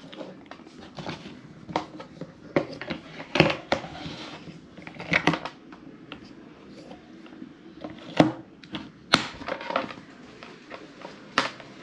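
Hard plastic clicks and knocks of the Hollyland Lark M1's small transmitters being handled and set into their charging case, with the case lid closing. The clicks come irregularly, several sharper ones standing out.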